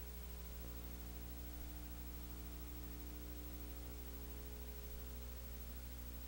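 Steady electrical mains hum with a constant bed of hiss, the noise floor of a soundless film or tape transfer. There is no live game sound.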